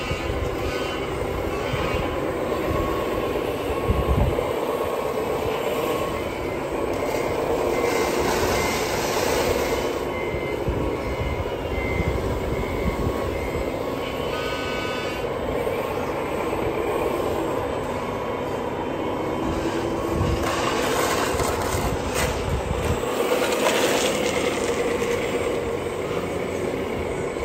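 Radio-controlled scale construction models, including a Komatsu WA470 wheel loader, running and working sand, giving a steady mechanical whir. Two stretches of evenly spaced high beeps come through, and a brief higher tone sounds about halfway through.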